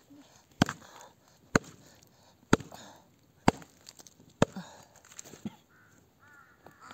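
An axe chopping a block of firewood: five sharp strikes about a second apart. A crow caws near the end.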